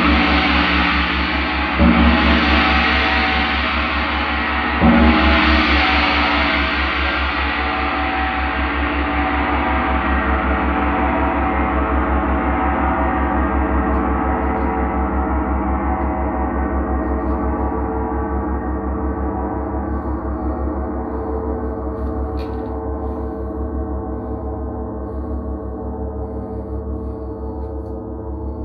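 Large gong struck with a soft mallet, twice in quick succession, then left to ring on in a long sustained wash of overtones that slowly fades, the bright high shimmer dying away first.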